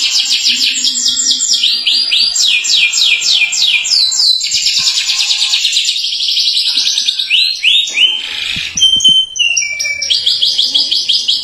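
Domestic canary singing a long, loud song of fast rolling trills, rapid runs of quick repeated sweeping notes, switching to a few slower, lower notes a little past halfway before the rolls resume.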